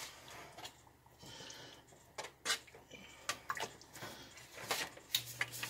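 Scattered light clinks, taps and scrapes of a utensil against a cooking pot while cream is added to the soup.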